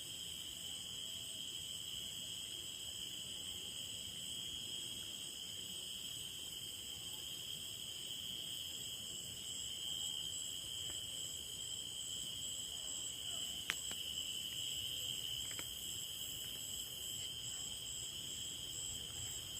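Chorus of insects, crickets and similar, calling together as several steady high-pitched drones at different pitches, with one sharp click about fourteen seconds in.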